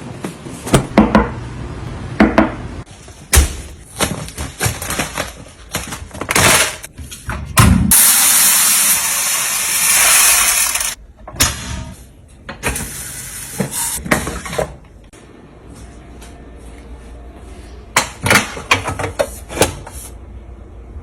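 Food containers and jars being handled and set down while a refrigerator is stocked: a series of knocks and clinks. A steady hiss runs for about three seconds near the middle.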